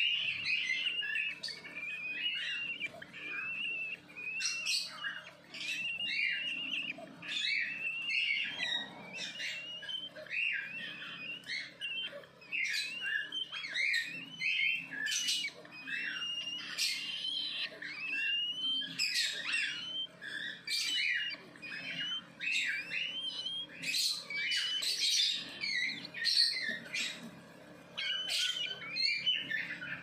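Cockatiel chicks giving begging calls while an adult feeds them: a continuous stream of short, raspy, rising chirps, several a second, with no pauses.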